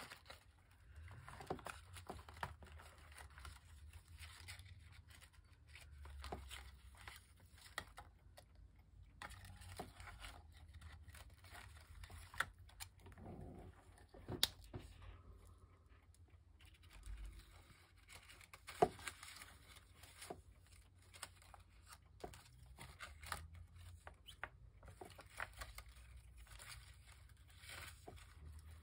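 Faint rustling of paper and light taps and clicks from paper craft pieces being handled and set down on a work surface.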